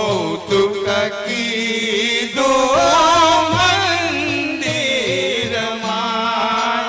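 Devotional music for raas dancing: a melody line that wavers and slides in pitch, likely a singing voice, over sustained accompaniment.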